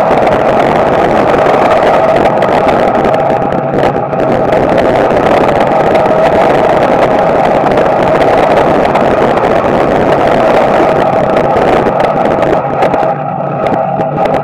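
Small-block Chevy V8 of a dirt-track street stock car running hard at racing speed, heard from inside the car. The drone holds mostly steady, dips briefly about four seconds in, and eases off for a couple of seconds near the end.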